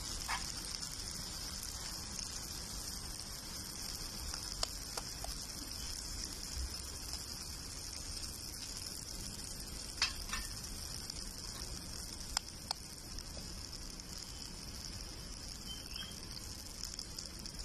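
Tomato-onion masala sizzling steadily in hot oil on an iron tawa, with a few sharp clicks as eggshells are cracked over the pan.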